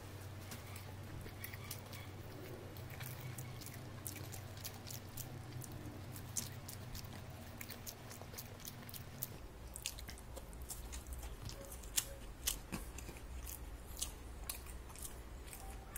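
Someone chewing and biting french fries close to the microphone: many short, sharp crunches and mouth clicks over a steady low hum.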